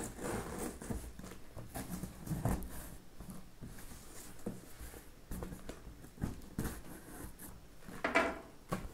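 Cardboard shipping box being opened by hand and its contents handled: quiet scattered rustles, scrapes and light knocks, with a louder rustle about eight seconds in.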